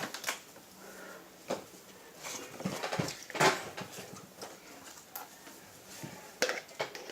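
Scattered soft clicks and knocks of a spoon and cup being handled while laundry detergent is added to a bowl of glue-and-shaving-foam slime.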